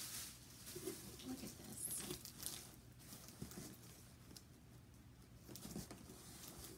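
Faint, scattered rustling and soft taps of a cardboard shipping box and its tissue-paper packing being handled as it is opened.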